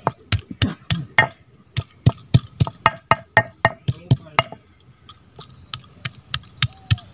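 Cylindrical stone roller knocking down on a flat stone grinding slab, crushing raw mango slices for chutney: quick sharp knocks, about four a second, with a short lull a little past the middle.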